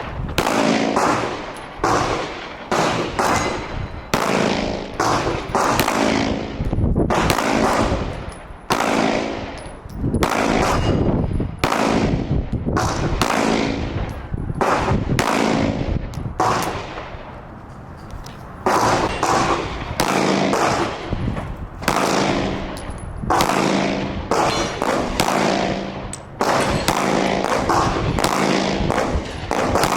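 Gunshots at a shooting range, fired in quick strings of several shots with short pauses between, each shot leaving a short ringing tail. There is a brief lull a little past the middle.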